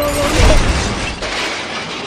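A heavy low boom with a crashing noise about half a second in, cutting off a steady two-note tone, then fading.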